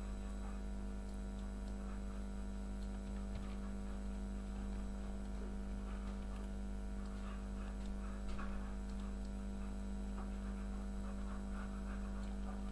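Steady electrical hum with a strong low tone and several fainter steady tones above it, unchanging throughout, with only faint scattered soft sounds over it.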